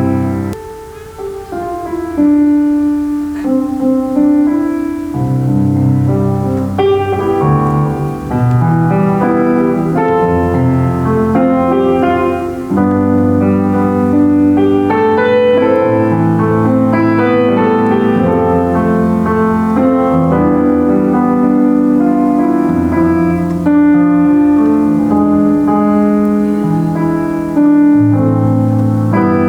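Solo piano playing a worship song in full, sustained chords, softening briefly about a second in and then playing on steadily.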